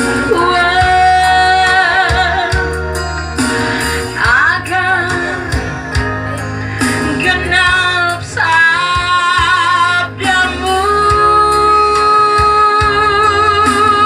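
Music: a woman singing a song with held, wavering notes over guitar and a steady bass beat.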